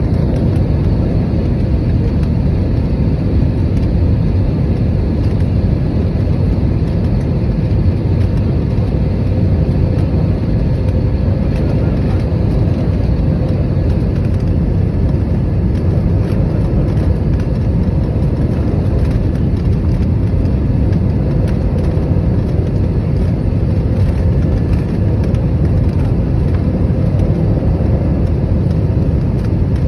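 Steady rumble of an airliner's engines and airflow heard inside the passenger cabin during the approach to landing, with a faint steady hum over it.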